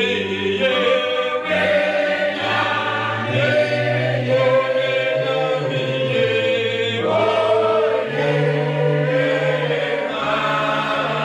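A choir singing a hymn in parts, the voices holding long notes over a sustained bass line.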